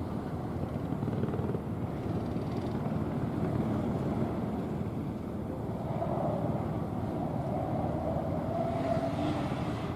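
Competition car's engine revving hard on a gymkhana course. In the second half its pitch climbs and holds high as the car accelerates.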